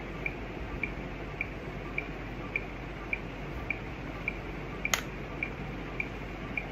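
A countdown timer ticks steadily, a little under two soft, high ticks a second, over a low hiss. A single sharp click comes about five seconds in.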